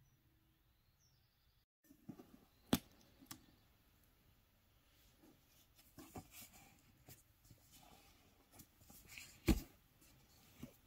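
Hands handling a cardboard gift box and pulling off its cord tie, starting about two seconds in: soft rustling and scraping of cord and card, with scattered clicks and two sharp knocks, one about three seconds in and one near the end.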